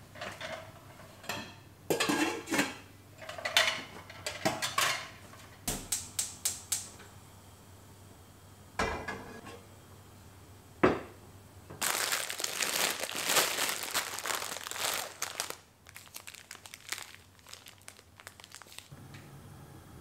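Kitchen handling sounds: cookware knocking and clattering as an enameled cast-iron frying pan and its lid are taken out and set on a gas stove, with a sharp knock about halfway through and a few seconds of continuous noise just after it.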